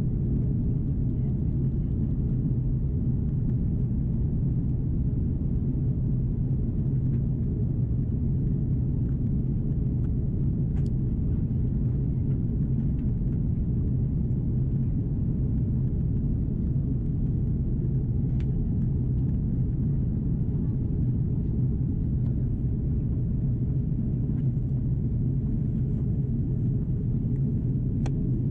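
Steady low rumble of cabin noise inside an Airbus A330-343 airliner in descent: airflow and engine noise from its Rolls-Royce Trent 700 engines, with a few faint ticks.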